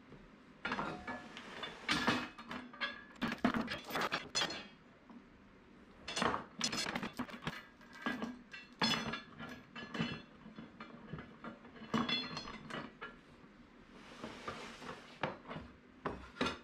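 Steel Danforth anchor and its chain clanking and rattling as the anchor is lifted out of a wooden cradle and laid back into it: a long series of irregular metal clanks and chain rattles, with a brief scrape near the end.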